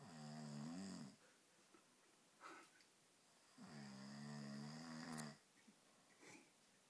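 A man snoring: two long, rattling, pitched snores about three seconds apart, with short fainter breaths between them.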